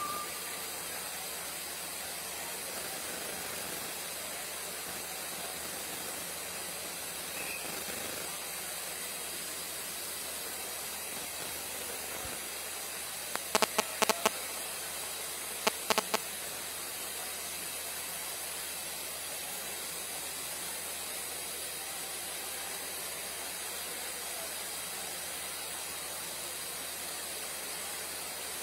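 Steam locomotive blowing off steam, a steady hiss of steam jetting from the front of the engine. Two brief bursts of sharp clicks break in about halfway through.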